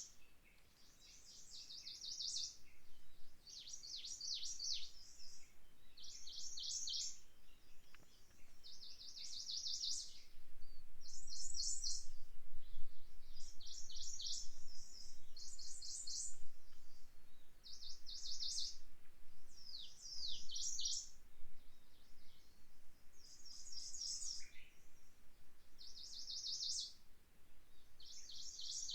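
A songbird singing short, high trilled phrases of rapid repeated notes, each about a second long, roughly every two seconds. A faint low rumble of wind rises in the middle.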